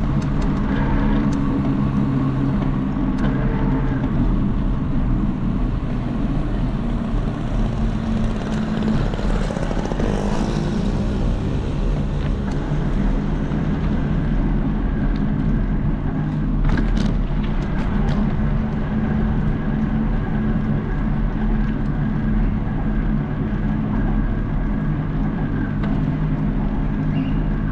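A motor vehicle engine running steadily amid road traffic, with another vehicle passing about ten seconds in.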